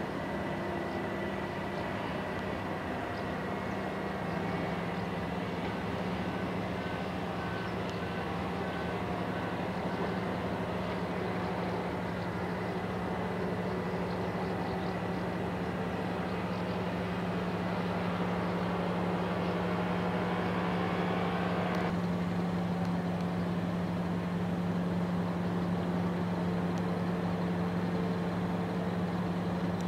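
Paramotor engine and propeller droning steadily in flight, with a sudden change in tone about 22 seconds in.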